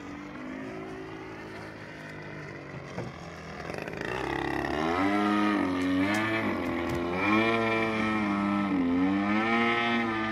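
Extra NG radio-controlled aerobatic model plane's motor and propeller in flight overhead. The sound grows louder about four seconds in, then its pitch dips and rises several times as the plane manoeuvres.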